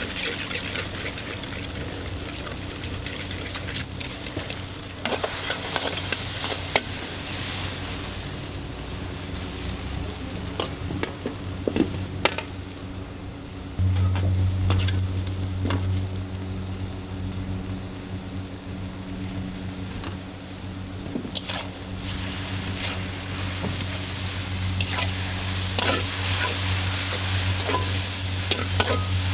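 Char kway teow stir-frying in a wok: a constant sizzle, with the spatula repeatedly scraping and clanking against the wok. A steady low hum runs underneath and gets louder about halfway through.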